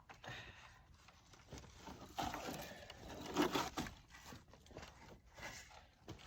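A heavy wooden pallet with 4x4 supports being shifted and dragged: wood scraping and knocking in irregular bursts, loudest in the middle.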